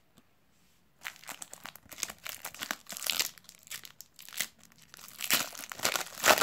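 Foil wrapper of a trading-card pack crinkling and tearing as it is ripped open by hand, starting about a second in and loudest near the end.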